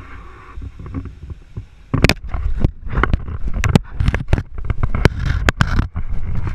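Low rumbling noise, then from about two seconds in a string of sharp knocks and clacks: an alligator biting and mouthing a camera, its teeth and jaws hitting the camera housing.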